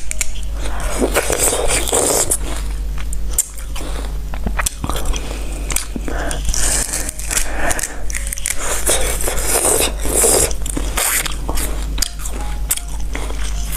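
Close-miked biting and chewing of firm, juicy fruit, a run of crunchy bites and wet chews. Near the end a knife scrapes along the fruit as it is peeled.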